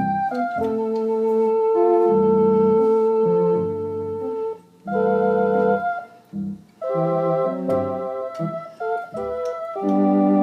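Organ played by ear: held chords with low bass notes underneath, breaking off briefly twice in the middle before the playing resumes.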